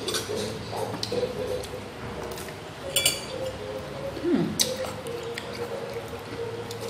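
Chewing on a piece of boiled small bitter gourd with the mouth closed. Two sharp clinks of dishes or cutlery come about three and four and a half seconds in, over a steady low hum.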